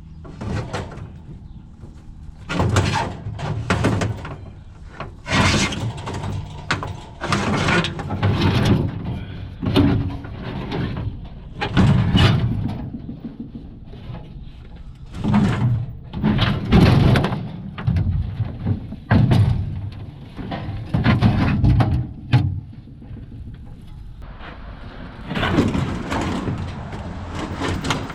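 Scrap being handled and moved: a dozen or so irregular bursts of clattering, scraping and knocking, each lasting about a second, with short quieter pauses between them.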